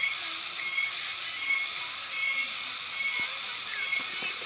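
Forest ambience: a steady high hiss with a short high chirp repeating about every three-quarters of a second.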